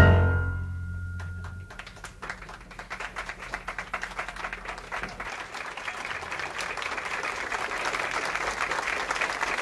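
A jazz piano trio's final chord dies away, with a low bass note ringing for about a second and a half. Then audience applause starts and builds steadily.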